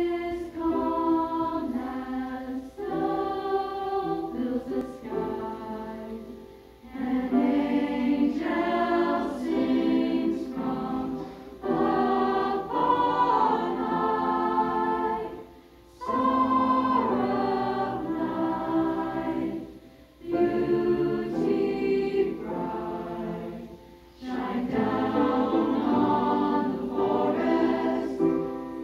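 Secondary-school choir singing a carol, with held phrases broken by short pauses for breath.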